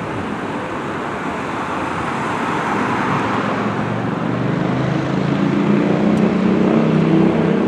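Steady engine noise that slowly grows louder, with a low droning hum coming in about halfway through and building toward the end.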